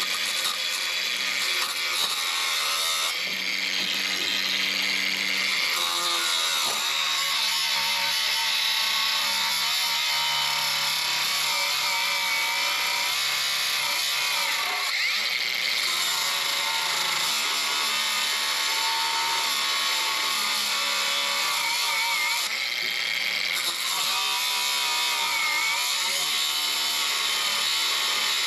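Die grinder cutting through a sway bar end link's bolt, whose ball stud spins in its socket so the nut cannot be undone. A continuous grinding noise whose pitch shifts now and then.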